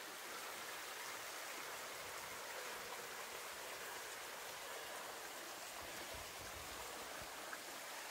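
Shallow hot-spring runoff trickling over rocks: a faint, steady rush of water.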